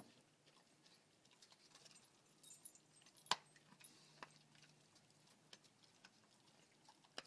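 Faint, sparse clicks and crunches of an Airedale terrier slowly chewing raw meat, with one sharper click a little over three seconds in.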